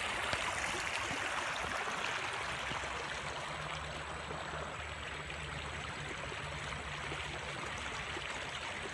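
Steady rush of river water running over a rocky break of boulders.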